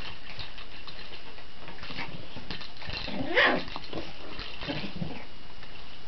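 Border terrier puppy scrabbling and pawing at a cat's scratching post, making scattered scratches and knocks, with one short puppy vocal sound about three and a half seconds in.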